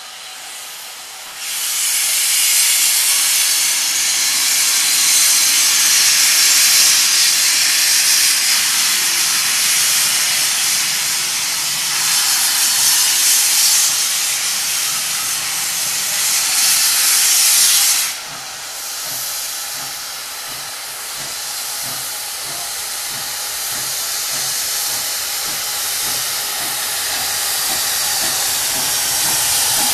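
Steam locomotive No. 65, an SECR O1 class 0-6-0, letting off a loud, steady hiss of steam that cuts off suddenly about eighteen seconds in. After that it runs quieter, with a regular rhythmic beat that grows slowly louder as the engine moves toward the listener.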